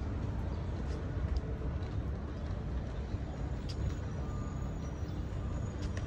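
Steady low rumble of outdoor background noise with no clear events, and a few faint, brief high tones over it.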